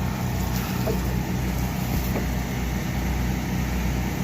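Gas engine of an 8 GPM pressure washer running steadily, with a constant low hum under a wash of noise.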